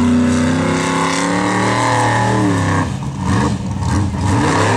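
Formula offroad buggy's roughly 1000-horsepower engine revving hard on a steep gravel hill climb, its pitch rising and falling. About three seconds in the revs drop off briefly before it revs up again.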